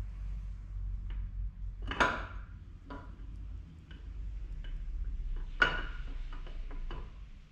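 Steel camshaft clinking against the cam bearings and block as it is eased into the bore of a V6 engine block: two sharp ringing metal clinks about three and a half seconds apart, with lighter ticks and knocks between.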